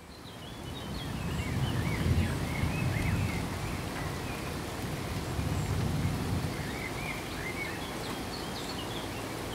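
Steady rain, fading in over the first second, with small birds chirping in two short spells, near the start and again near the end.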